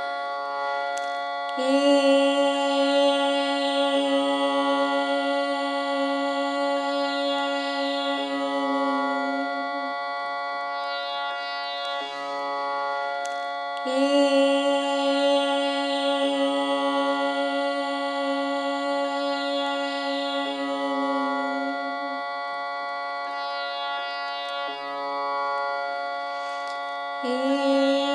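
A woman singing long held notes in Indian classical vocal practice, each held about eight seconds, over a steady drone. One note begins about two seconds in, a second about halfway through, and a third starts near the end.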